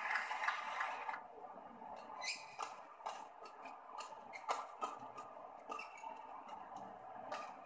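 Badminton rally on an indoor court: players' shoes squeaking and short sharp racket strikes on the shuttlecock, after a brief wash of crowd noise that fades in the first second.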